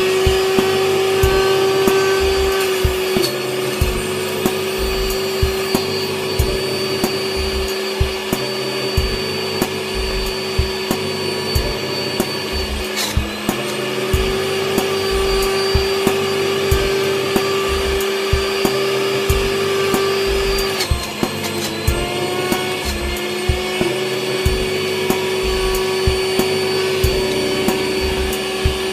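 Breville centrifugal juicer running with a steady high motor whine. The pitch sags a few times, about three seconds in, around thirteen seconds and around twenty-one seconds, as the motor slows under load while produce is pushed down the feed chute, then recovers.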